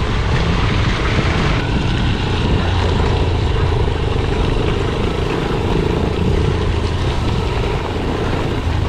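Motorcycle engine running steadily at cruising speed while riding, mixed with rushing wind noise on the microphone.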